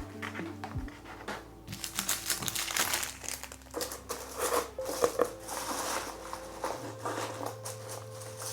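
Packaging crinkling and rustling in short, irregular spells as a carbon fibre repair kit's contents are handled and packed back into their box.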